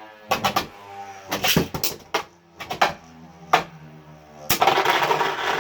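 Two Beyblade Burst tops, Valtryek and Roktavor, spinning in a plastic stadium: a steady spinning whine broken by sharp clacks as they collide. About four and a half seconds in, a loud continuous rattling grind starts as they lock together.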